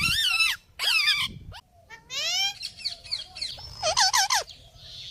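Parrot calling: a run of about five or six loud calls that arch up and down or glide upward in pitch, with short pauses between them.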